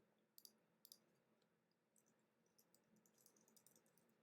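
Near silence with faint clicks from trading cards being handled: a few soft ticks near the start, then a quick scatter of small clicks in the second half.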